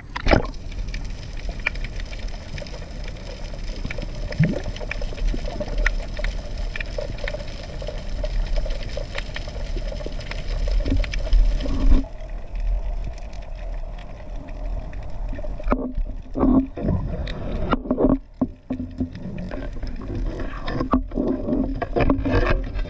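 Underwater ambience on a night freedive: a steady low rumble of water with a faint steady hum and scattered faint clicks. After about sixteen seconds come a few louder bursts of water movement.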